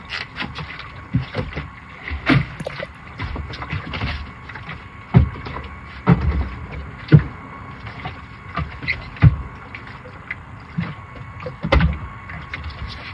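Scattered knocks and thumps at irregular spacing, over a faint steady hum.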